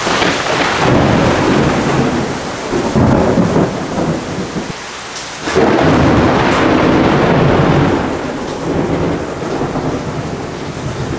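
Thunderstorm: heavy rain with rolling thunder. The rumble drops briefly near the middle, then comes back suddenly and loud about five and a half seconds in.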